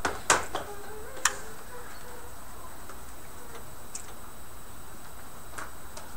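Sharp clicks in a quiet hall: two loud ones in the first second and a half, then a few faint scattered ticks over steady room hiss.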